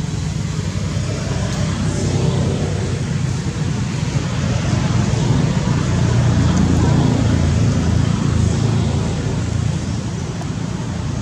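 Steady low rumbling background noise that swells a few seconds in and eases off near the end.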